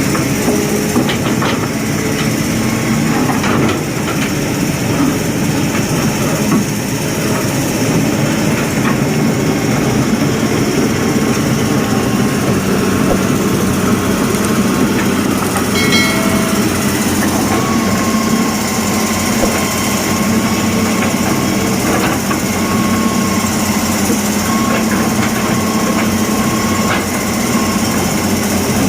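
An engine running steadily throughout, with a constant hum.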